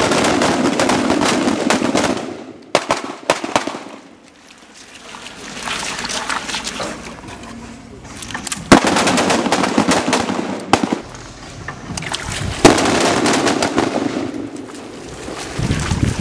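M4 carbines firing strings of rapid shots: three spells of firing, at the start, about nine seconds in and about thirteen seconds in, with short lulls between.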